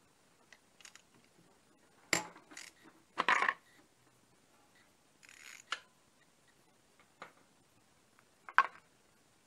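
Scattered metal clicks and clinks of a socket wrench being worked on a fastener at the top of a motorcycle engine's cylinder head. The loudest come about two and three seconds in and again near the end.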